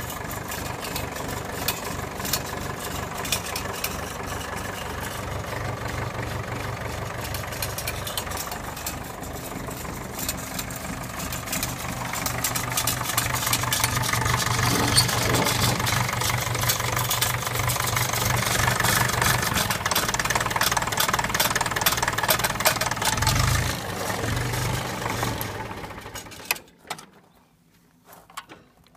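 Ferguson TEF20 tractor's diesel engine idling steadily, getting louder about halfway through, then stopping near the end, leaving near silence.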